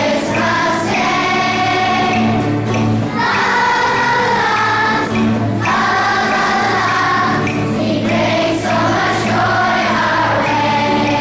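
Children's school choir singing a song in unison over a steady instrumental accompaniment.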